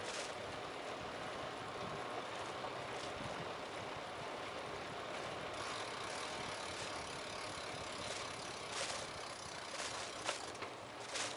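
Bicycle being ridden, with steady rolling and wind noise. A few sharp rattles and clicks from the bike come in the last few seconds.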